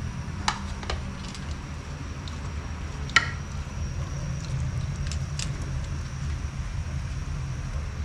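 A few light clinks of utensils against a cooking pot, the sharpest about three seconds in, over a steady low rumble.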